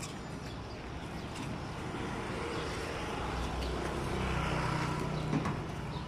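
Street traffic: a motor vehicle's engine passing, growing louder toward a peak about four to five seconds in and then easing off, with a short knock just after.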